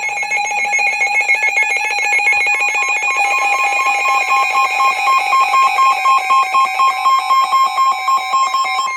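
NOAA Weather Radio warning alert: a loud, pulsing electronic alarm, about four pulses a second, with a steady higher tone joining about two seconds in. It is the attention signal that comes before a spoken severe thunderstorm warning.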